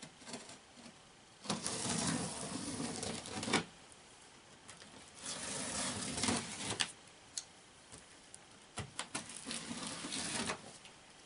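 Packing tape on a cardboard box being slit and pulled away from the seam in three tearing, scraping bursts of about two seconds each, with a few sharp clicks in between.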